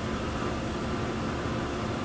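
Textile-dyeing machinery running steadily: an even rush of noise with a constant low hum.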